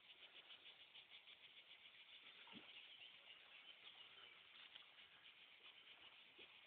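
Faint, steady chirring of insects in summer grass, with a fine rapid pulse and a light tap about two and a half seconds in.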